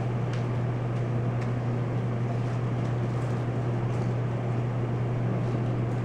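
Steady low hum with an even hiss of room background noise.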